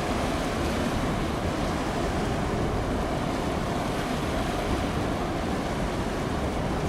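Steady rushing of wind on the microphone and water washing against the shore, with no distinct events.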